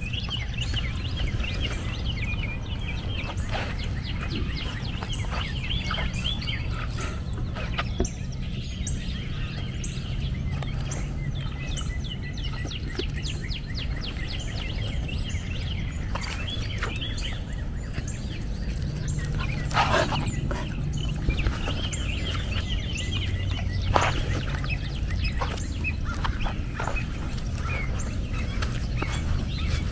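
Birds chirping and twittering on and off over a steady low rumble, with two louder sharp sounds about two-thirds of the way through.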